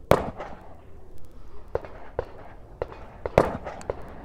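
Gunshots on a shooting range: several sharp cracks at uneven intervals, the loudest just after the start and another about three and a half seconds in, with smaller ones between.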